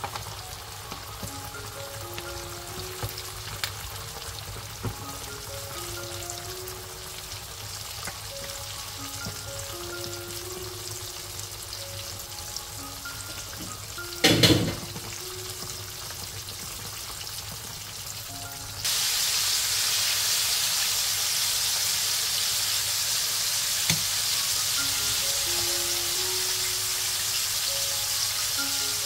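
Chicken wings deep-frying in a wok of hot oil: a steady sizzle and bubbling, with background music. About 14 s in there is one brief loud knock, and about two-thirds of the way through the sizzle jumps abruptly much louder and brighter as the browned wings fry a second time.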